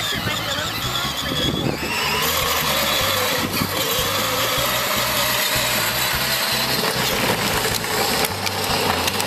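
Children's battery-powered ride-on toy quad running steadily, its electric motor and gearbox going with the rumble of hard plastic wheels over grass and then concrete.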